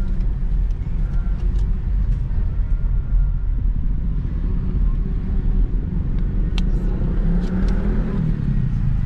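Car interior noise while driving slowly: a steady low rumble from the engine and tyres.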